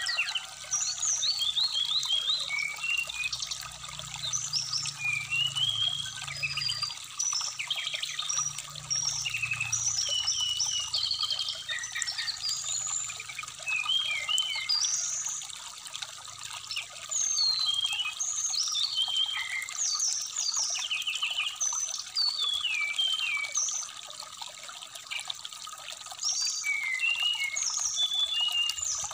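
Brown-chested jungle flycatcher singing: a continuous string of short, varied whistled phrases, over the steady trickle of a shallow stream.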